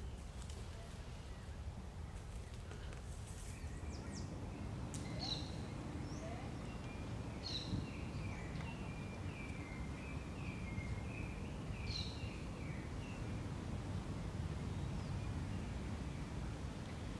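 Outdoor ambience: a steady low rumble with birds calling over it. There are a few sharp chirps and a run of short quick notes in the middle.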